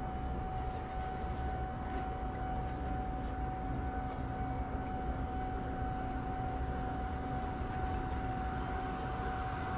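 Steady low rumble of a distant vehicle, with a steady high tone above it.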